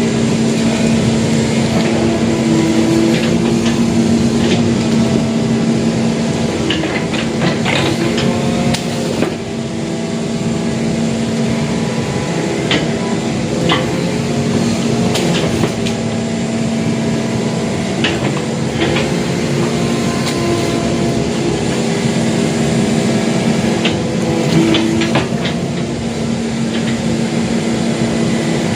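Excavator diesel engine running steadily, with scattered sharp metallic knocks and clanks from the machine working.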